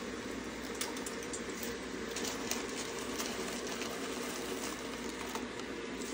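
Pot of water boiling on a gas stove, a steady bubbling hiss, with a few faint light ticks as handfuls of dried egg noodles are dropped in.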